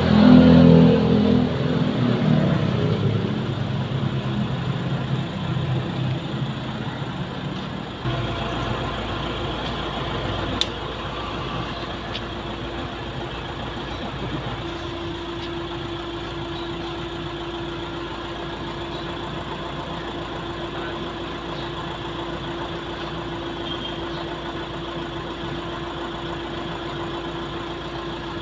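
Steady engine-like background hum. A louder pitched sound falls away over the first couple of seconds, and a steady single tone joins about halfway through.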